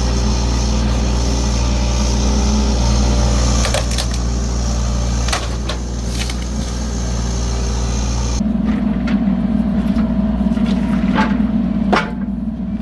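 Mini excavator's diesel engine running steadily, with scattered sharp knocks and cracks. About eight seconds in, the sound changes abruptly to a different steady engine hum, still with sharp clicks and knocks.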